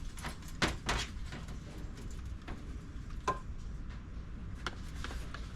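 Scattered light clicks and knocks of handling over a steady low rumble, with one short squeak about three seconds in.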